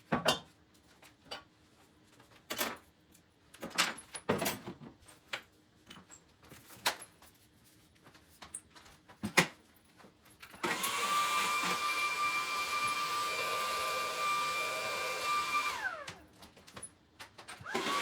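Scattered knocks and clicks of objects being handled, then a vacuum cleaner switched on partway through. It runs with a steady whine for about five seconds, switches off with a falling whine as the motor spins down, and switches on again near the end.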